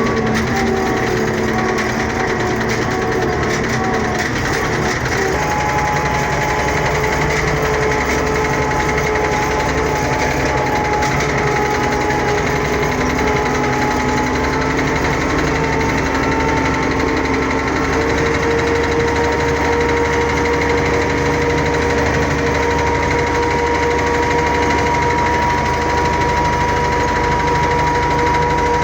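Engine running steadily under load while harrowing soil for sowing, its note creeping slightly higher over the stretch.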